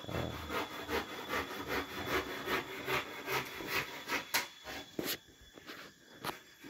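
Hand saw cutting wood in quick back-and-forth rasping strokes, about two or three a second, dying away about four and a half seconds in, followed by a few sharp knocks.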